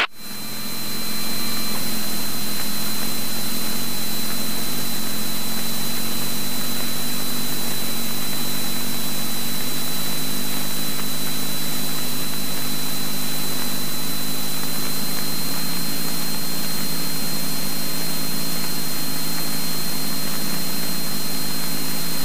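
A Cessna 172N's four-cylinder Lycoming piston engine and propeller droning steadily at constant power, heard inside the cabin, with a thin steady high whine.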